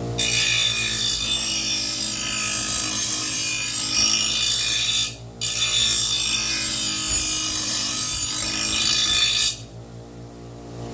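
Steel lawn mower blade being sharpened on a grinder's stone: two grinding passes of about five and four seconds with a short break between, then the grinding cuts off near the end.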